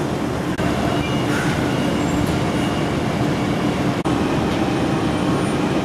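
Steady rumbling dockside machinery noise with a constant low hum, from the ship and the cargo crane working alongside it. The sound cuts out for an instant twice, about half a second and four seconds in.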